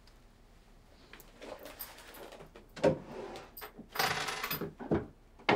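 A few knocks and steps, then a dresser drawer sliding open about four seconds in, followed by another knock.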